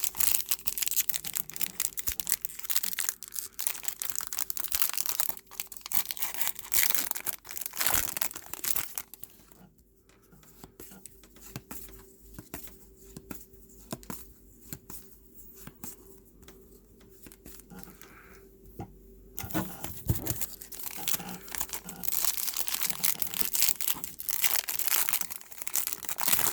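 A foil trading-card pack being torn open and crinkled, then cards rustling and sliding as they are handled. The tearing and crinkling are loudest in the first third and again near the end, with a quieter stretch of soft card handling in between.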